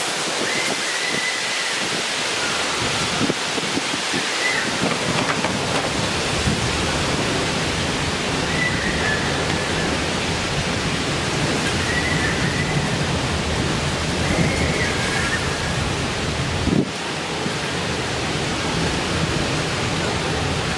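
Heavy rain and gusting storm wind of a thunderstorm, a steady rushing noise, with a deeper rumble setting in about four seconds in.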